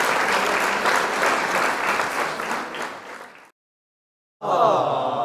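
Crowd applause that fades out about three and a half seconds in. After a second of silence, a short pitched, voice-like sound effect begins near the end, its pitch bending.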